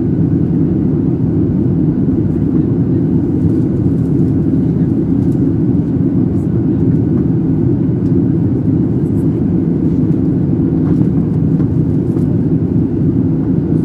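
Steady low rumble of engine and airflow noise inside the cabin of a Boeing 737-700 airliner with CFM56-7B engines, heard from a window seat over the wing during the descent.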